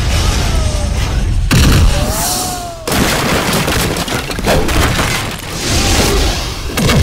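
Movie fight-scene sound effects: heavy booming hits and a dense rush of noise, mixed over background music.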